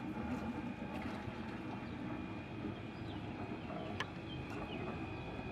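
Inboard diesel engine of a Linssen 320 AC motor cruiser running steadily at low speed while the boat manoeuvres slowly out of its berth, giving an even low hum. A single sharp click comes about four seconds in.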